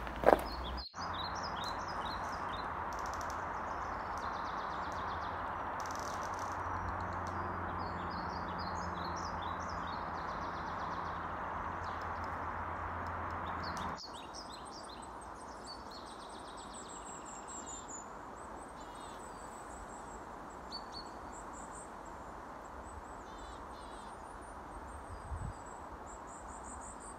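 Small birds chirping and twittering over a steady background rush. About halfway through the rush drops to a lower level, and thin, very high chirps go on over it.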